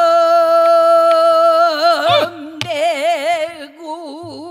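Female pansori singer holding one long sung note, steady at first and then wavering in a wide, slow vibrato from about two seconds in, with a few low strokes of the buk barrel drum.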